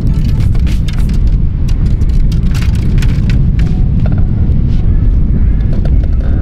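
Strong wind buffeting the microphone: a loud, steady low rumble with irregular crackles.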